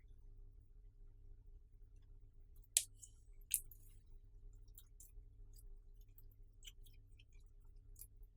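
Clear slime being squished and worked by hand, giving small sticky clicks and crackles, with two sharper pops close together about three seconds in, over a faint low hum.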